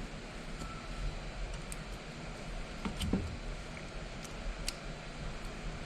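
Light handling of small hand tools on a bench: a few faint, sharp clicks and a soft knock about three seconds in, over a steady background hiss.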